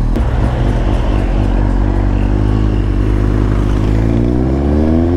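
Suzuki GSX-S750's 750 cc inline-four engine running under way, its bassy exhaust note from the long-canister silencer rising in pitch from about four seconds in as the bike accelerates.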